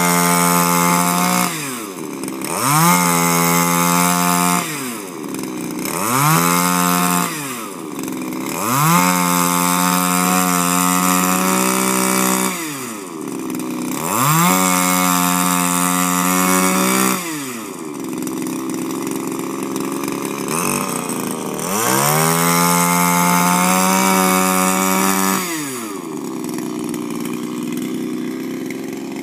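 Shindaiwa power broom's two-stroke engine revving up and dropping back, about six times over, as its rotating brush sweeps dry leaves on grass; near the end it settles to a steady idle.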